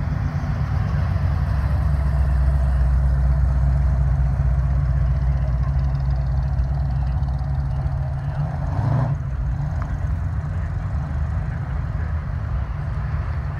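Engines of an early-1970s Dodge Challenger and then a C5 Corvette moving slowly past at low revs: a steady, deep engine rumble.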